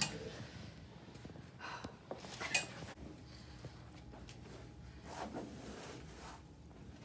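Chiropractic adjustment: a few short, sharp clicks and knocks over quiet room tone, the sharpest about two and a half seconds in.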